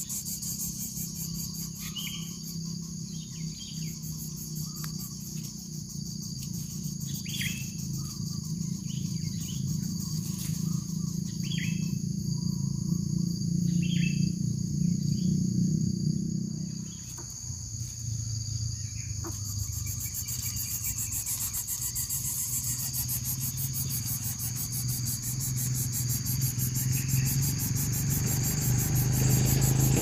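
Steady high-pitched insect drone of crickets, with scattered short chirps over the first twenty seconds and a low steady hum underneath that drops and changes about seventeen seconds in.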